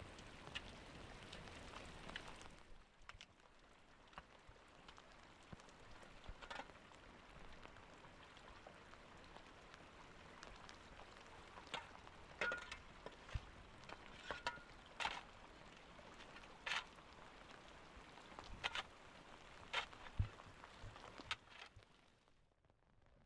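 Steady rain falling, with scattered sharp drips and taps of drops striking nearby surfaces; it fades out near the end.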